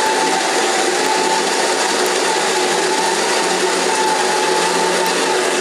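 Electric coffee grinder running steadily with a constant whine, grinding espresso beans straight into the portafilter, then switching off abruptly at the end.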